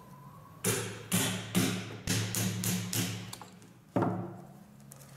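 A hammer knocking on the wooden windshaft of a windmill being built: about nine sharp blows, several in quick succession, the last about four seconds in, each ringing on briefly.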